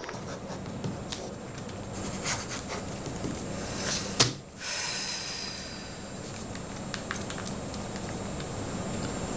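Quiet room tone with a steady hiss and scattered light clicks and rustles of paper being handled at a desk, with a sharper click about four seconds in.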